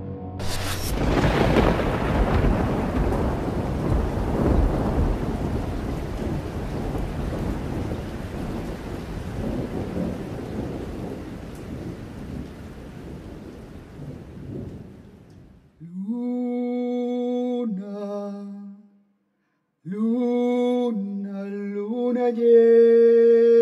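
A thunderclap cracks about a second in and rolls on as a long rumble with rain hiss, fading away over some fifteen seconds. Near the end a man's voice sings long held notes in two phrases.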